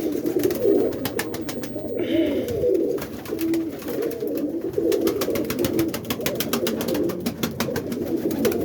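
Many roller pigeons cooing over one another in an enclosed loft, with frequent light clicks and taps.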